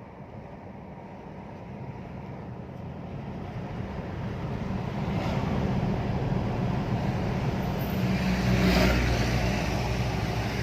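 Isuzu D-Max pickup with its 3.0 4JJ3-TCX turbodiesel on the road, engine and road noise growing steadily louder as it gathers speed.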